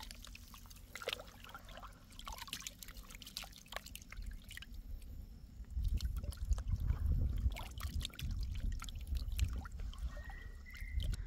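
Hands squeezing and swishing a wet fermented rice mash in a metal bucket of water, with irregular trickling, dripping and sloshing as it is dissolved. The sloshing grows louder about six seconds in as a forearm stirs the water round.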